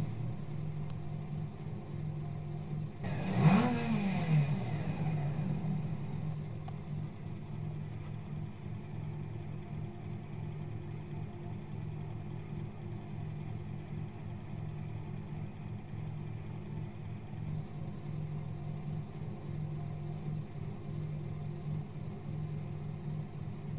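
Car engine idling, revved once about three and a half seconds in, the pitch climbing and falling straight back, then settling into a steady idle.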